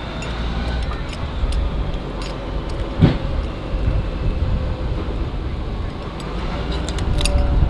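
Heavy-equipment diesel engine idling, a steady low rumble, with a single sharp knock about three seconds in.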